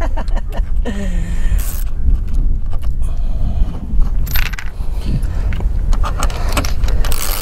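Light metallic clinking and rattling of hand tools and battery cable clamps being handled, as the cables are swapped over on the battery. A steady low rumble runs underneath.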